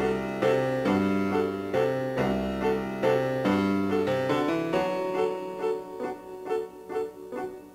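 Background piano music: a gently repeating figure of notes, about two a second, over low bass notes, growing gradually softer toward the end.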